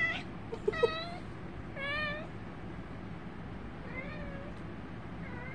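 Five-month-old kitten meowing in a string of short meows, the later ones fainter.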